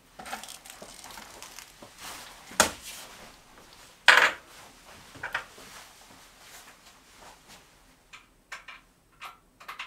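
Handling knocks and clatter: a few separate sharp knocks, the loudest about four seconds in, then a run of quick small clicks near the end as the Haenel Modell 310 air rifle is handled at its action.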